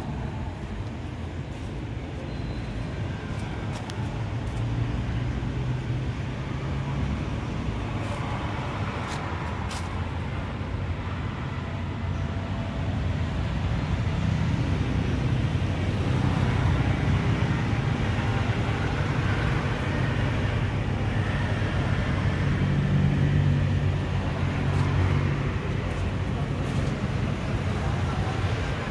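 Steady low rumble of road traffic, growing louder about halfway through.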